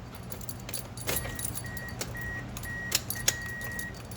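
Car keys jangling and clicking as the key goes into the Toyota Corolla's ignition, then the car's warning chime beeping repeatedly at one steady high pitch, about two beeps a second.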